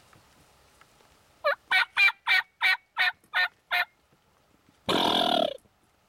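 Wild turkey calls: a run of eight evenly spaced hen yelps, about three a second, then about a second later a short gobble from a tom.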